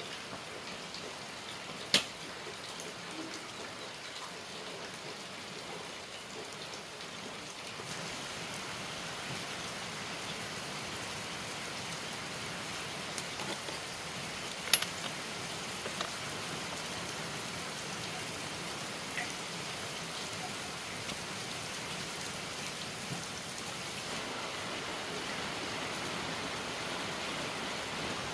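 Steady, even hiss with a few sharp clicks or taps, the loudest about two seconds in and another about halfway through.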